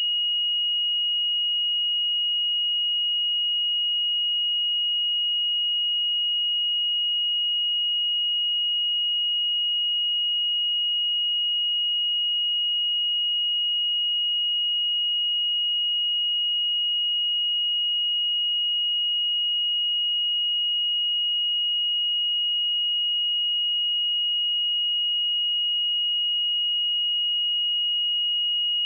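A pure 2885 Hz sine-wave test tone, held steady at one constant pitch and level.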